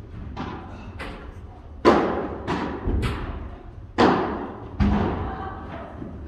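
Padel rally: the ball struck back and forth with padel rackets and bouncing on the court, a string of sharp hits that echo in the hall, the loudest three about 2, 4 and 5 seconds in.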